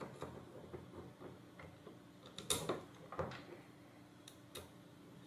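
Faint, scattered small clicks and ticks of a metal standoff spacer and its bolt being handled and turned by hand in a hole in a robot car chassis plate, the sharpest clicks about two and a half and three seconds in.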